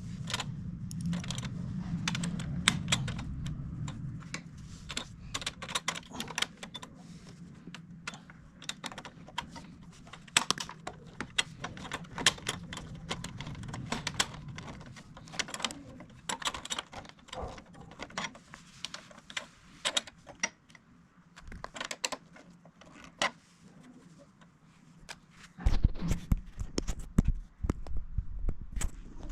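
Irregular sharp clicks and taps of small hard objects being handled, with a low hum in the first few seconds and a run of heavier knocks near the end.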